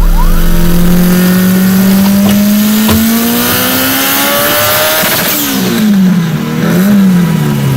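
Car engine under acceleration, its pitch climbing slowly for about five seconds. It then dips and rises a couple of times near the end.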